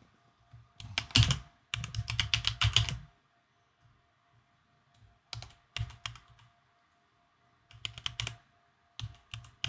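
Computer keyboard typing in several short bursts of rapid keystrokes, with pauses between the bursts.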